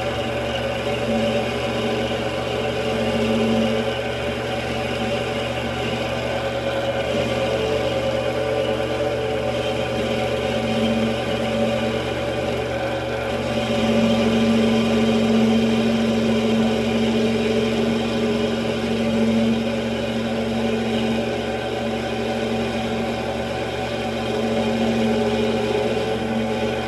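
Mini metal lathe running steadily while turning down a small metal part, its motor giving a steady hum that grows stronger about halfway through.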